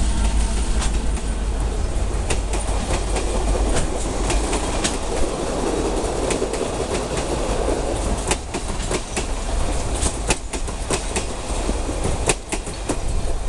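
Coaches of a Ferrovías passenger train rolling past close by: a steady rumble of steel wheels on the rails, with irregular sharp clicks and knocks as the wheels cross the rail joints, the clicks coming thicker in the second half.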